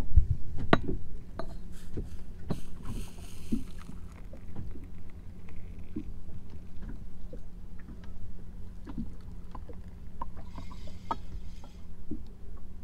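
A small fishing boat on the water: scattered light knocks and clicks of the hull and gear over a steady low hum, with a sharper knock about a second in.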